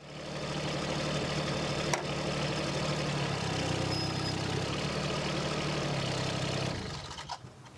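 Mini excavator's diesel engine running steadily, its note shifting slightly about three seconds in, with a single sharp click about two seconds in; the engine sound falls away near the end.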